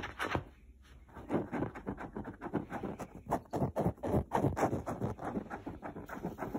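Rapid scratching and rustling on fabric, several quick strokes a second, with a short break about a second in.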